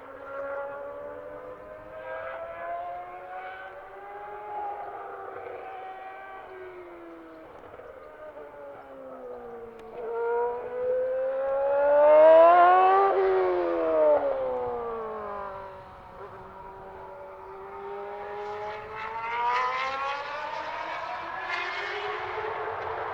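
Benetton B190 Formula One car's V8 engine at racing revs, its pitch climbing through each gear and dropping at the changes and braking. It is loudest about halfway through, where the pitch rises and then falls sharply, and it climbs again near the end.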